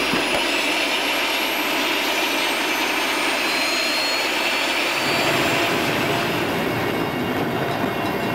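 Mil Mi-8-type military transport helicopter's turbine engines running, with a high whine slowly rising in pitch. About five seconds in, a deeper rotor drone swells as the helicopter lifts off.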